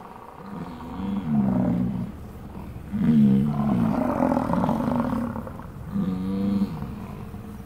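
American bison bellowing: three long, low, drawn-out calls, the middle one the loudest.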